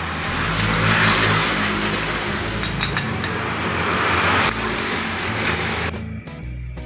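Background music with a bass line over a rushing noise that swells twice and drops away near the end.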